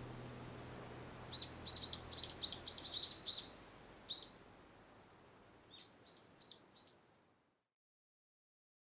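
A wild bird giving a quick run of short, high, down-slurred chirps, about ten in two seconds, then a single note and a few fainter chirps. The faint outdoor background fades out to silence about seven seconds in.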